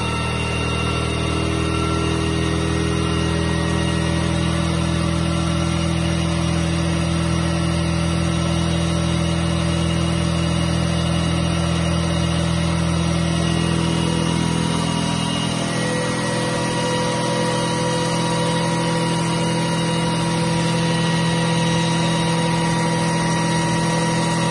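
Turbocharged Classic Mini engine idling steadily, its pitch shifting slightly about fifteen seconds in.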